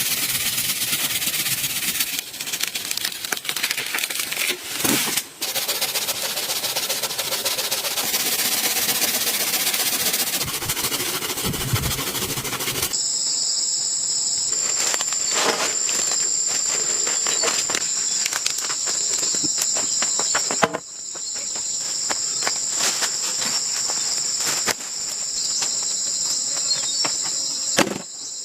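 Insects chirring in a steady, high, continuous drone that starts about halfway through, with scattered knocks and taps over it. Before that, a dense steady hiss with knocks.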